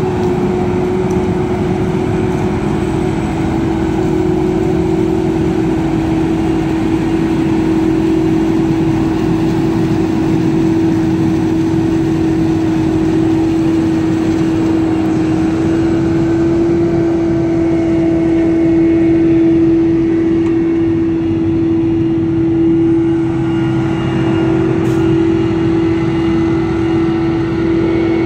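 Krone Big X 1100 self-propelled forage harvester chopping maize under load, its engine and chopper running with a loud, steady hum, joined by the Fendt 930 tractor pulling the silage wagon alongside.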